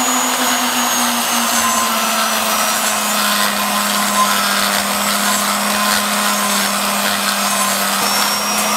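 Die grinder with a ball-shaped abrasive stone running steadily as it grinds the intake bowl of a cast-iron 289 small-block Ford cylinder head, radiusing the port into the valve seat. A steady hum sits over a dense grinding hiss.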